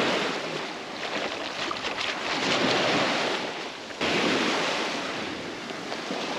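Small surf waves washing and fizzing over the sand at the waterline. About four seconds in the sound changes abruptly to a more even wash of breaking waves.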